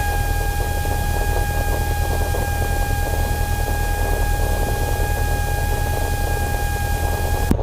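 Small single-engine airplane's piston engine idling as it warms up after a cold start, heard inside the cockpit: a steady low drone with a steady high whine over it. A short click near the end.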